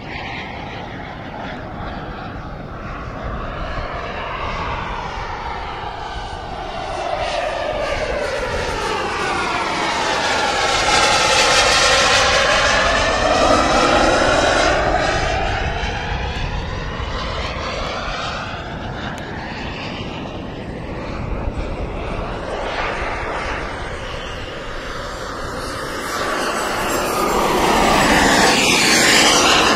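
JetCat P200 model jet turbine in flight: a steady turbine whine and rush that swells to its loudest about a third of the way through, with a sweeping, phasing whoosh as the jet passes, then fades, and swells again near the end as the jet comes by low and close.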